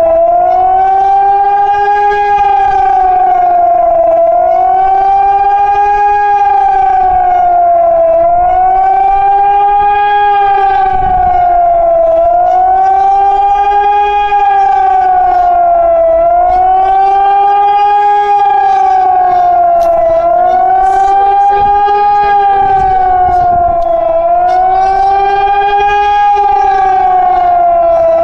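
Hörmann ECN electronic siren sounding the warning (attack) tone in a test: a loud rising-and-falling wail, about one cycle every four seconds, with a lower tone moving in step beneath the main one.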